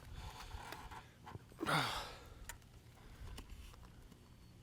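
A man's heavy sigh, falling in pitch, about two seconds in, amid a few faint clicks.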